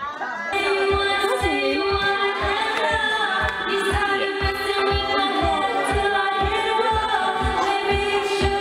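Karaoke: a woman singing into a microphone over a backing track with a steady beat, the music coming up louder about half a second in.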